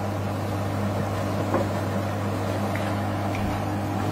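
Steady electric hum of a kitchen fan motor, with a faint tap about a second and a half in.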